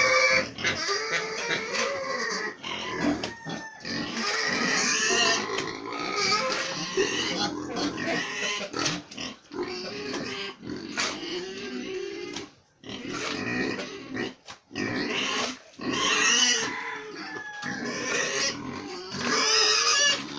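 Pigs calling almost without pause: a dense run of loud pitched calls that bend up and down, broken by a couple of short gaps past the middle.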